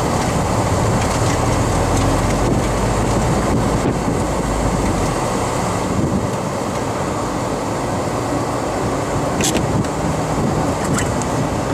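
Mazda MX-5's four-cylinder engine running at low speed from inside the open-top cabin, with tyre and wind noise. The low engine rumble eases about five seconds in, and two brief clicks come near the end.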